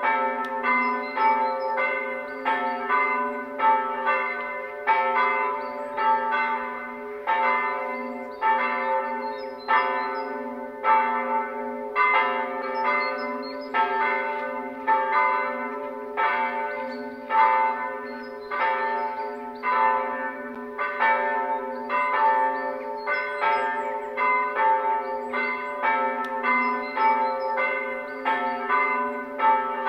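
Several church bells ringing together, with overlapping strokes in an uneven but steady rhythm of about two to three a second over a lasting low hum. This is the bell ringing that calls people to the service before it begins.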